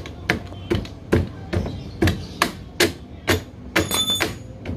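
Metal-on-metal hammer strikes, a bit more than two a second, tapping a scooter's steel front axle through the wheel hub to seat it. A brief metallic ring follows the strikes near the end.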